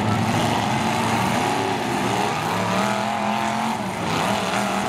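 Demolition derby trucks' engines revving, several engines overlapping, their pitches rising and falling.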